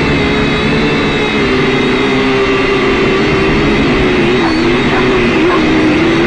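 Syma X5C quadcopter's small motors and propellers whining steadily, several close pitches wavering together as the throttle shifts.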